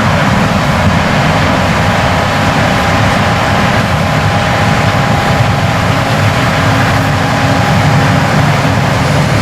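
John Deere S690 combine running steadily while harvesting corn: an even heavy engine and machinery rumble with a steady high whine over it.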